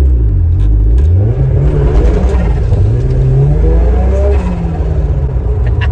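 Ford Sierra Cosworth's turbocharged 2.0-litre four-cylinder engine accelerating hard through the gears. Engine pitch drops at each gear change, then climbs again. It pulls without the misfire, which the owner puts down to the spark plugs.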